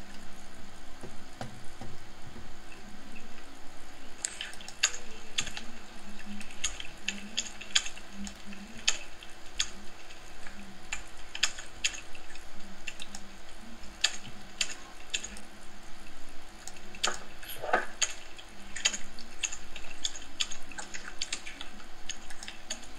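Scattered, irregular sharp clicks and ticks over a steady low hum.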